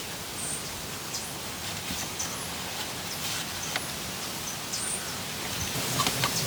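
Steady outdoor hiss with light rustling and scattered small clicks and ticks.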